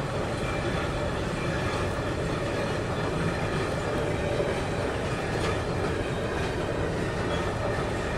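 Freight train of double-deck car-carrier wagons rolling steadily past, a continuous rumble of wheels on rail with a few faint clicks.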